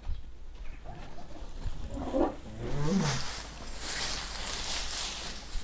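Rustling of oat hay being handed out to young cattle, with a short low call that rises and falls in pitch about three seconds in.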